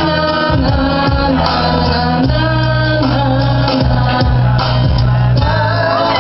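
Music with singing over long held bass notes.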